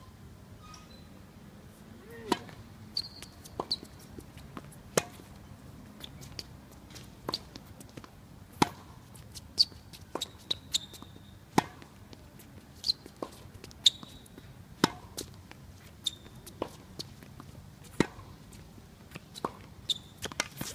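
Tennis rally: sharp pops of racket strings hitting the ball every couple of seconds, the nearer ones loudest, with lighter ball bounces between them. A few short high squeaks come in among the hits.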